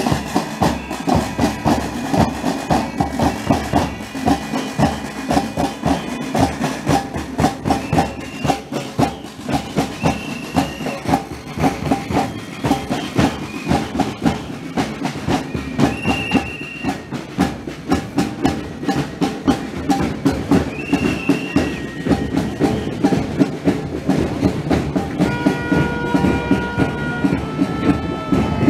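Marching drum group of snare drums, bass drums and cymbals beating a steady, fast drumming rhythm, with short high whistle-like tones now and then and a few held tones near the end.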